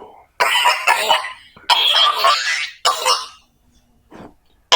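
A person coughing hard in a fit: about half a dozen loud coughs in quick succession, then a pause, a faint cough and one more loud one near the end.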